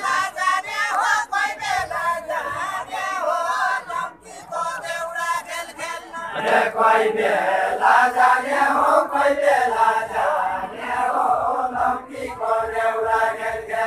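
A group of voices chanting a deuda folk song together, unaccompanied, in the sung question-and-answer style of Far-Western Nepal, with short breaks between lines and a long held note near the end.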